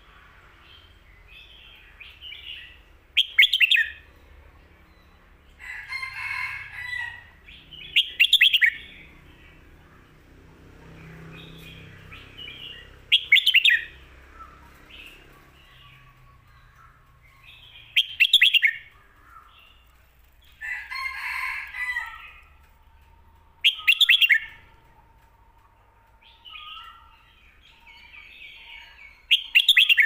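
Red-whiskered bulbul singing: a short, loud, quick phrase repeated about every five seconds, with softer warbling notes between.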